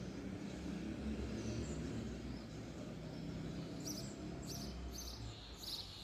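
Small birds chirping outdoors: a handful of short, high chirps in quick succession in the latter part, over a steady low rumble.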